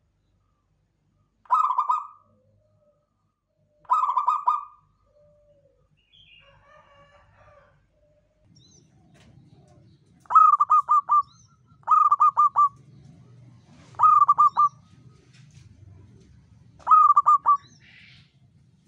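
Zebra doves (perkutut) cooing: two short phrases of fast coo notes near the start, then, after about eight seconds, another bird giving four phrases of three or four rapid, stuttering coo notes each, with a faint low hum underneath.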